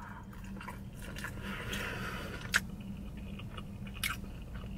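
Close-miked mouth sounds of a person chewing a mouthful of red snapper, with a couple of sharp smacks, about two and a half and four seconds in.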